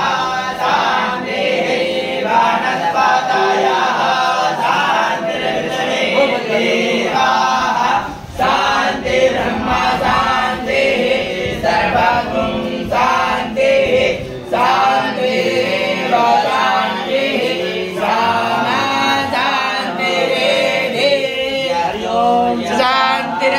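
Several men's voices chanting Sanskrit mantras together in a sing-song recitation, with a brief break about eight seconds in.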